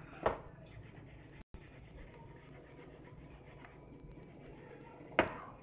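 Faint rubbing of a hand mixing a dry cornmeal-and-flour dredge in a bowl, with two sharp knocks, one just after the start and one near the end.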